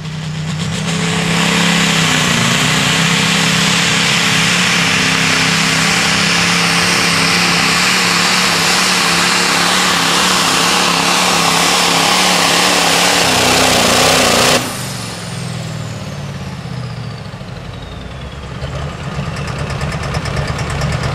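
Massey Ferguson Limited Pro Stock pulling tractor's turbocharged diesel engine going to full power as the pull starts, running hard under load with its pitch wavering for about thirteen seconds. The throttle then shuts off abruptly at the end of the pull; the turbo whistles down in a falling whine while the engine drops back to a low run.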